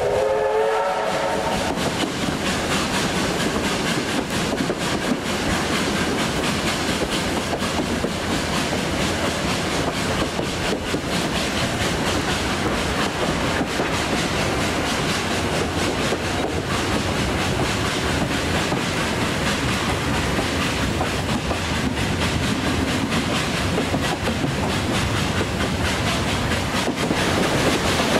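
Steam train running along the track with a steady rumble and wheel clatter over the rails. A locomotive whistle of several tones sounds at the start and dies away about a second in.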